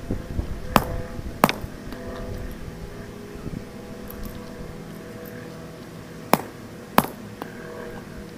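Sledgehammer striking a steel padlock, four sharp metallic blows in two pairs of quick double hits about five seconds apart.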